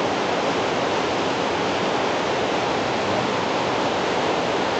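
Steady, even background hiss with no other sound in it.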